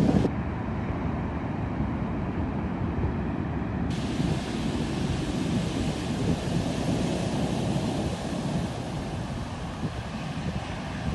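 Rough sea surging and breaking, with strong wind buffeting the microphone.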